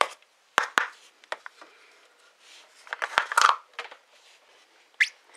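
Plastic drill dust-collector cup being handled and pulled apart: a few sharp plastic clicks and knocks, with some scraping and rustling about three seconds in.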